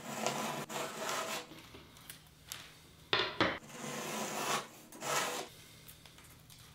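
Utility knife blade drawn along the edge of a thin wooden strip, slicing tape flush with the wood in a few separate scraping strokes.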